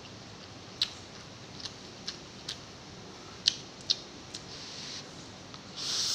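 Close mouth sounds of a person eating instant noodles: sharp wet clicks while chewing, then the noodles slurped in with a loud hiss near the end.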